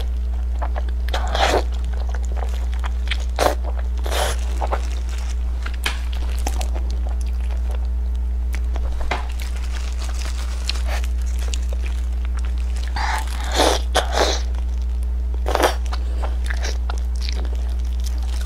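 Close-miked eating: biting and chewing pieces of chili-topped fish, with short mouth noises now and then, clustered near the middle and toward the end. A steady low electrical hum runs underneath.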